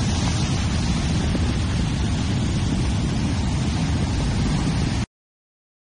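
Wind rumbling on the microphone over breaking surf: a steady rushing noise, heaviest in the lows, that cuts off abruptly about five seconds in.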